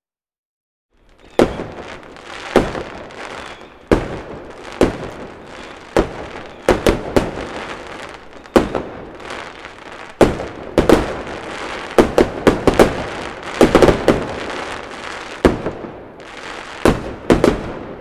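Fireworks going off: about twenty sharp bangs at irregular intervals, some in quick clusters, with crackling between them, starting about a second in after silence.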